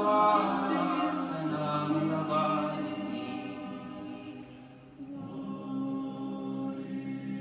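Mixed choir singing held chords a cappella. The chord fades away over the first four seconds or so, and a new, lower chord comes in about five seconds in.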